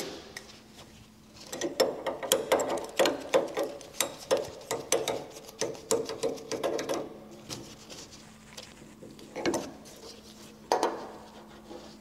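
Brass water isolation valve being screwed by hand onto the boiler's threaded connection: a quick run of small metal clicks and rubs from the fitting and threads, followed by two separate knocks near the end.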